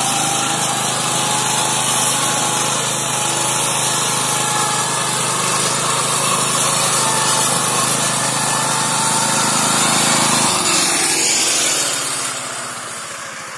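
Neva MB-2 walk-behind tractor's engine running under load, driving a Zarya rotary mower through tall grass and weeds. About ten seconds in the engine note falls and the sound fades.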